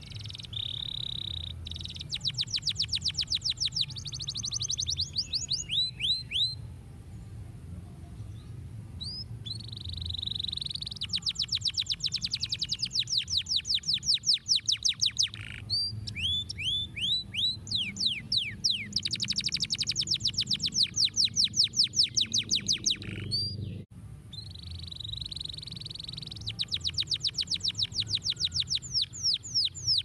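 Domestic canary singing: long phrases of rapid repeated notes, about ten a second, alternating with held whistled notes and short pauses between phrases.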